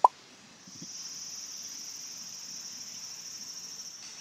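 A brief sharp blip right at the start, then insects chirring steadily at a high pitch with a fine rapid pulse, setting in about half a second in.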